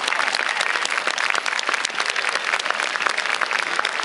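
A large crowd clapping steadily, with scattered voices mixed in.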